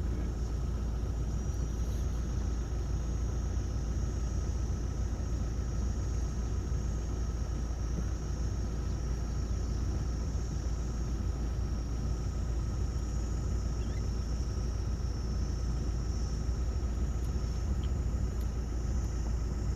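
Steady low rumble of a vehicle heard from inside or on board, with a faint steady high whine over it.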